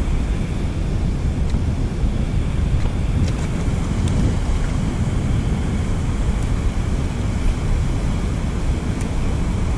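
Wind buffeting the microphone: a steady, loud low rumble, mixed with the rush of shallow creek water flowing over rocks.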